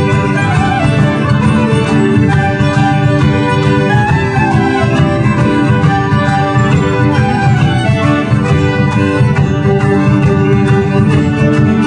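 Folk band playing a morris dance tune live, led by squeezeboxes holding sustained reedy chords and melody over a steady pulse.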